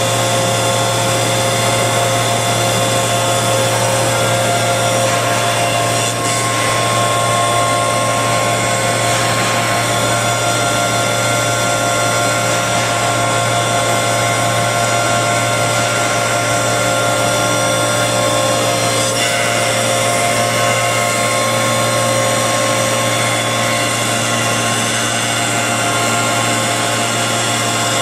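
Double-sided milling machine for edging wooden bed-base lamellae running steadily, its cutter-head motors and feed conveyor giving a loud, even whine of several steady tones over a low hum as the lamellae are fed through.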